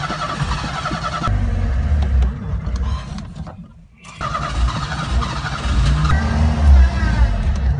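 An old Ford Pinto's starter cranks and the engine catches, revs briefly, then dies out about three and a half seconds in. It is cranked again, catches and revs with the gas pedal pumped: a hard-starting engine that keeps stalling.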